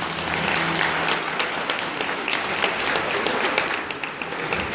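Audience applauding, a steady patter of many hand claps; the last held note of the music dies away about a second in.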